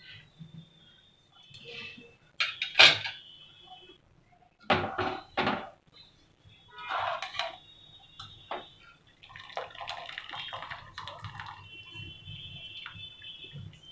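Wire-mesh skimmer clanking against a steel kadai as it stirs through blanched spinach in hot water: several sharp metallic knocks, the loudest about three seconds in. Near the end, water splashes and drips as the leaves are lifted out.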